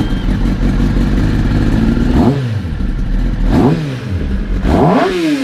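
Kawasaki ZX-10RR's inline-four engine idling and revved with three quick throttle blips, about two, three and a half and five seconds in, each rising and falling back to idle.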